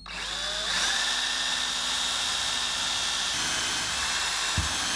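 Power drill starting up and running at a steady high whine as it bores a hole into a hard plastic dog bone. The motor speeds up over the first second, and there is a low knock near the end.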